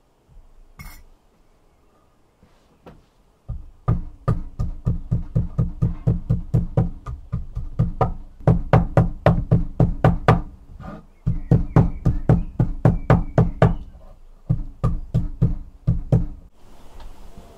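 A smooth hand-held stone pounding garlic cloves on a wooden cutting board: quick, steady knocks, about three or four a second, starting a few seconds in and pausing briefly twice.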